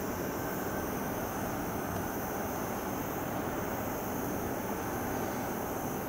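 Steady, even background noise with no distinct strokes, knocks or rhythm.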